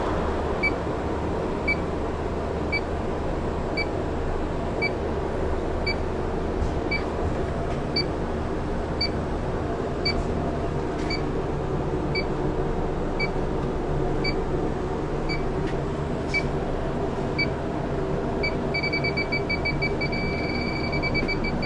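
INFICON D-TEK 3 refrigerant leak detector ticking out short high beeps about once a second while it scans, over a steady machine hum. Near the end the beeping speeds up into a rapid, almost continuous alarm, the detector's response to a refrigerant reading at the probe.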